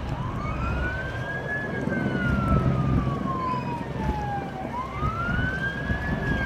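Emergency vehicle siren in a slow wail. The pitch rises quickly, then falls slowly over about three seconds, and starts rising again about three-quarters of the way through. A steady low rumble runs underneath.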